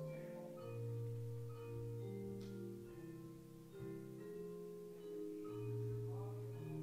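Slow instrumental church music: sustained keyboard chords over held bass notes, the chord changing about every second.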